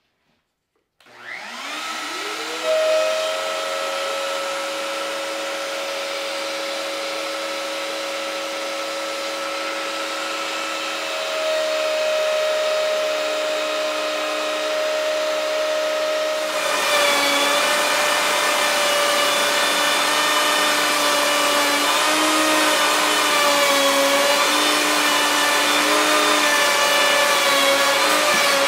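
Festool plunge router on a guide rail spinning up about a second in, then running steadily at speed. Just past halfway the 3/4-inch bit starts cutting a rabbet in the plywood. From then on the sound is louder and its pitch wavers under the load of the cut.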